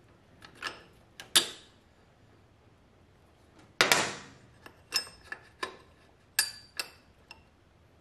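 Metal clinks and knocks of steel bolts and suspension links being worked out of a motorcycle's rear shock linkage by hand: a string of separate sharp taps, some ringing briefly, the two loudest about a second and a half and nearly four seconds in.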